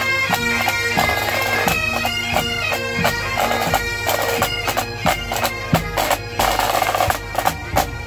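A pipe band playing: Great Highland bagpipes sound a melody over their steady drones, with snare and bass drums beating under them.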